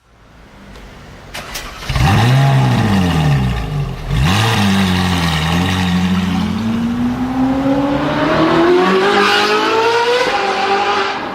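Lamborghini Murciélago V12 through a Capristo exhaust: two quick revs about two and four seconds in, then a long pull climbing in pitch, dropping at an upshift about ten seconds in and climbing again.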